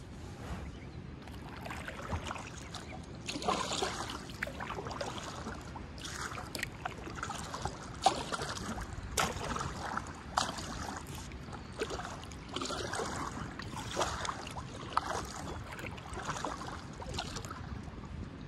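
Kayak paddle strokes: the blades dipping and pulling through the water in a steady rhythm, about one stroke a second, each with a splash and drips of water.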